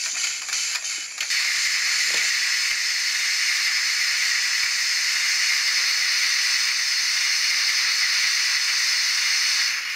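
Steady steam-locomotive hiss sound for a model BR 18 steam locomotive, starting about a second in and cutting off suddenly just before the end.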